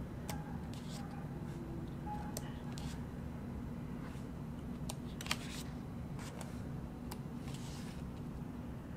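Glossy pages of a photo book being turned by hand: short paper swishes and light clicks, with one sharper click about five seconds in, over a steady low hum.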